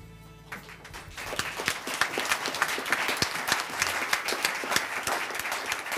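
Audience applauding: many people clapping, starting about half a second in and quickly building to dense, steady applause.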